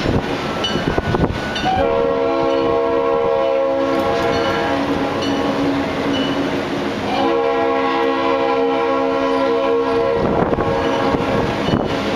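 Diesel locomotive's air horn sounding two long blasts, each about three seconds, several notes at once, a couple of seconds apart, over the rumble of the moving train.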